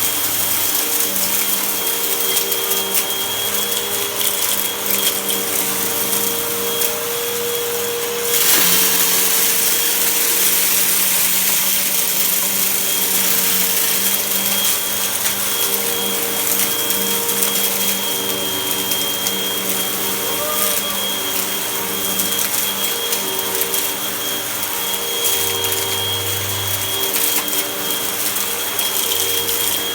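Vacuum cleaner running steadily with a high whine. About eight seconds in it becomes louder and hissier.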